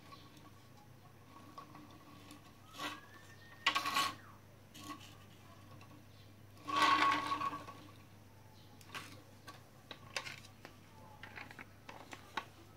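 Plastic toy vehicles handled on a tile floor: scattered clicks and knocks, with two short rushing scrapes, the second about a second long and the loudest.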